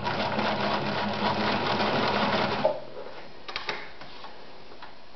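Victoria Super Deluxe 118F electric sewing machine running a straight stitch through four layers of leather, then stopping abruptly a little under three seconds in. A couple of light clicks follow.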